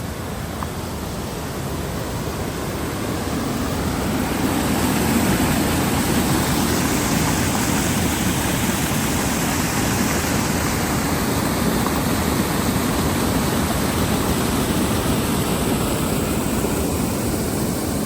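Steady rushing water of a small waterfall, growing louder over the first several seconds and then holding.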